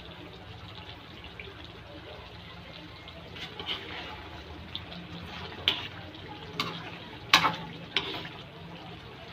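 Pork adobo simmering in a wok with a steady bubbling hiss. From about three and a half seconds in, a spatula stirs the meat and knocks against the wok several times; the loudest clack comes about seven seconds in.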